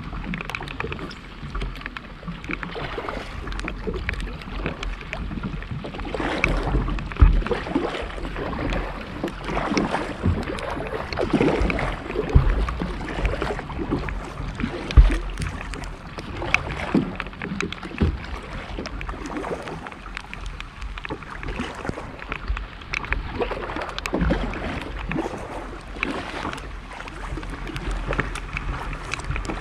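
Kayak being paddled with a double-bladed paddle: the blades dip and splash in the water with each stroke. Irregular small knocks and drips run through it, with two sharper knocks about a third and halfway through.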